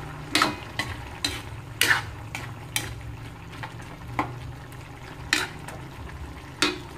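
Metal spatula stirring jackfruit in coconut milk around a stainless steel wok, scraping and knocking against the pan about nine times at irregular intervals.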